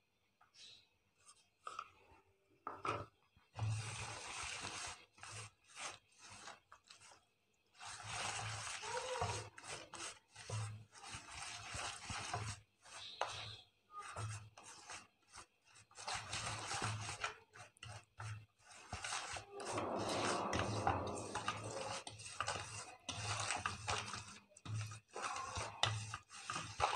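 Bare hand mixing an egg into creamed butter and sugar in a stainless steel bowl: fingers rub and scrape the batter against the metal in quick, irregular strokes. The mixing starts a few seconds in, after a few faint clicks.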